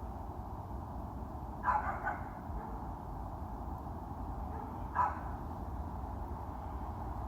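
A dog barks three times: two quick barks close together about two seconds in and a single bark about five seconds in, over a steady low roar.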